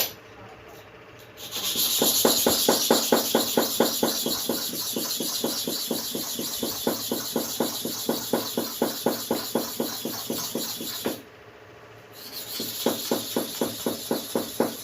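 Hair clipper blade rubbed back and forth on a sharpening stone in quick, even strokes, about four a second, with a gritty hiss. The strokes stop for about a second near the end, then start again.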